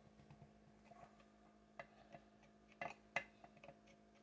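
Faint, scattered clicks and taps of hand tools and small metal parts being handled on a cloth-covered workbench, the sharpest a little after three seconds in, over a faint steady hum.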